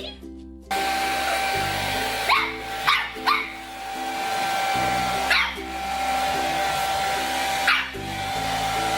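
A dog barks five times in short sharp yaps over a steady whirring machine noise, with background music underneath.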